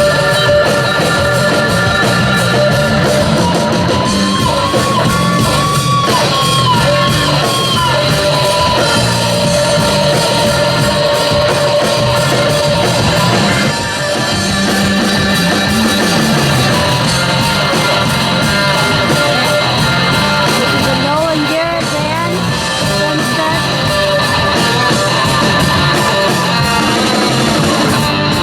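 Live rock band playing loudly, with a singer and a lead line that bends up and down over the band.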